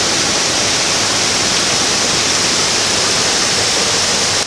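Muddy floodwater rushing and cascading down a steep creek channel in spate: a loud, steady rush of water.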